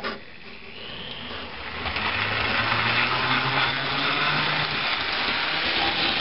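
HO-scale model train locomotive's electric motor running on the layout's track with a steady whine and rumble, growing louder over the first two seconds and then holding steady.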